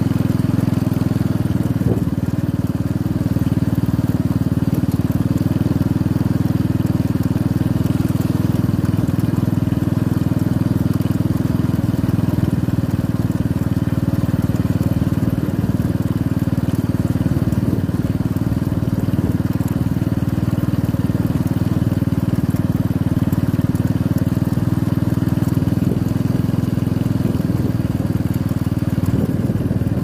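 Motorcycle engine running at a steady cruising pace with a low, even hum, under a continuous rush of wind and road noise.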